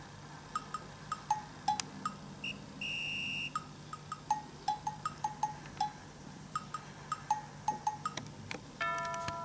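Light background music of short wood-block and cowbell-like percussion notes. A steady electronic beep sounds briefly about three seconds in, and a bell-like chime rings out near the end, quiz-show sound effects.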